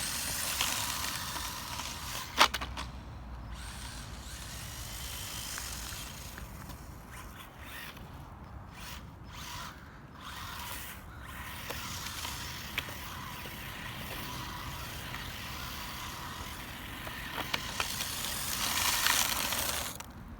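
ZD Racing Rocket S16 4WD brushless RC car's electric motor and drivetrain whirring in bursts of throttle, with a sharp click about two and a half seconds in.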